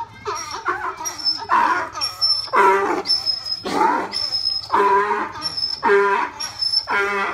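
Donkey braying loudly: a long unbroken run of hee-haw cycles, the in-breath and out-breath notes alternating about twice a second.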